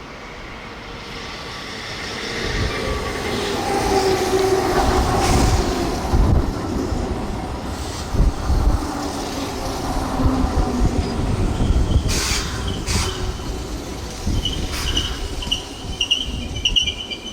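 Keihan electric train running through the station, building up over the first few seconds into a steady rumble with repeated thumps of the wheels over rail joints and a pitched whine from the wheels.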